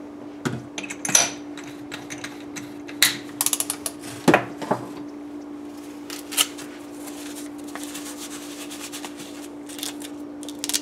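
Handling noises: scattered clicks and knocks as a cordless drill fitted with a bottle-cutting bit and a glass bottle is set down on a countertop and work gloves are pulled on. There is a quick run of clicks about three and a half seconds in and the loudest knock just after four seconds, over a steady low hum.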